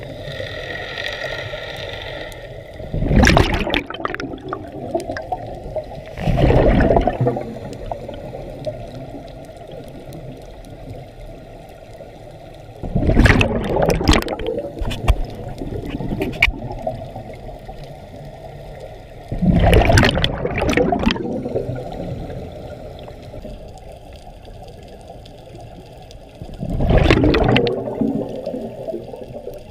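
Scuba regulator breathing heard underwater: a steady low hiss broken by five loud bubbling rushes of exhaled air, a few seconds apart.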